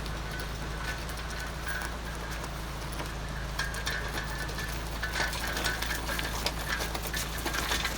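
Irregular clicks and taps of hand tools working on metal parts of a gasifier, growing busier after about three and a half seconds, over a steady low hum.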